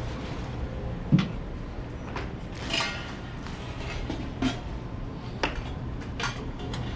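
Airport lounge room noise with a steady hum, broken by scattered knocks and clinks of dishes and utensils at a buffet.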